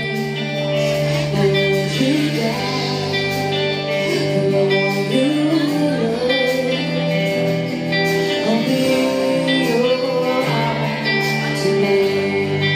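A live band playing: a woman singing a melody into a microphone, backed by electric guitar and bass.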